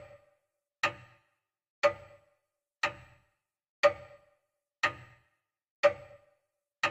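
A clock ticking as a sound effect: single sharp, evenly spaced ticks, one a second, with silence between them.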